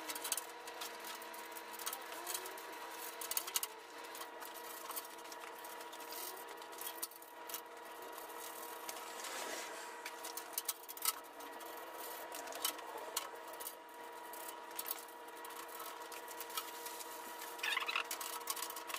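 Light, irregular clicks and rattles of steel hardware as the bandsaw's steel leg stand is handled and its bolts are fitted during assembly, over a steady hum.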